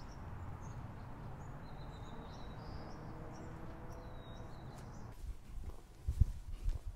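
Steady background noise with a few faint bird chirps in the middle. A few low thumps come near the end.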